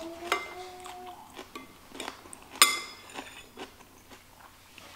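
A metal spoon clinking against tableware: a few light clicks, with one clear ringing clink about two and a half seconds in. A short hummed note sounds in the first second.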